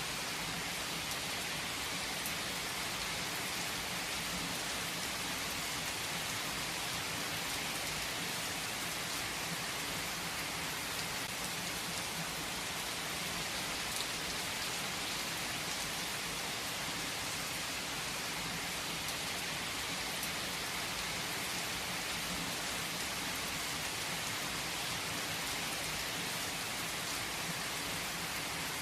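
Steady rain falling and pattering on a surface, an even hiss with scattered drop clicks.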